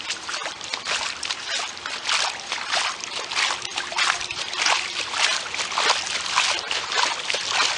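Floodwater splashing and sloshing in a dense, irregular run of short splashes.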